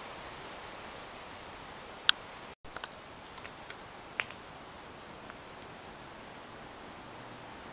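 Steady outdoor background hiss, broken by a few short, sharp chirp-like clicks: the loudest is about two seconds in and another about four seconds in.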